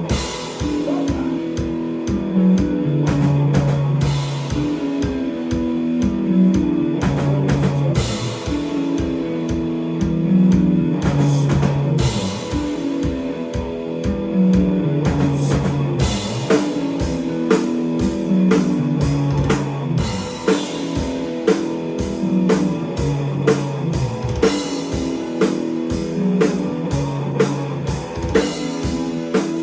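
Live rock band playing an instrumental passage: drum kit and guitar over a bass riff that repeats about every four seconds.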